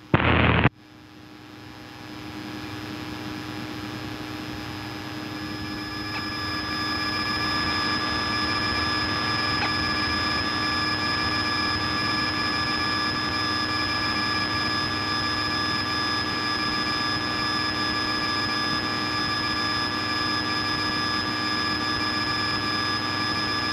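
Piper Cherokee's piston engine and propeller droning steadily, heard from inside the cockpit. The drone fades up over the first several seconds and then holds at an even level and pitch.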